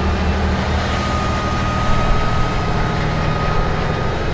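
Diesel engine of a heavy eight-wheeled military rocket-launcher truck running steadily as the truck drives, a low even hum with a thin high whine through the middle.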